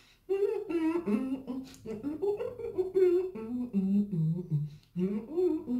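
A woman humming with her mouth closed and full of boiled egg while chewing, the pitch wandering up and down and stepping downward near the end.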